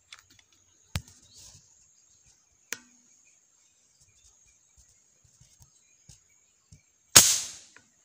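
A .22 Strella Parco air rifle firing once about seven seconds in: a single sharp crack with a short decaying tail. Before it come two small sharp clicks and a brief falling bird chirp, over a steady thin high-pitched drone.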